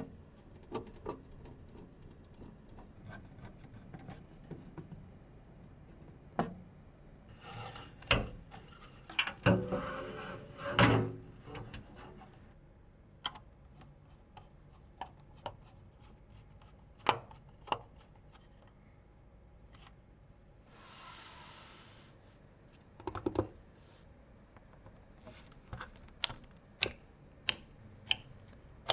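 Hands assembling PC parts: scattered sharp clicks and light knocks of plastic and metal with rubbing and handling noise. There is a busier stretch of knocks and rustling about eight to eleven seconds in, a brief hiss a little past twenty seconds, and a quick run of about five clicks near the end.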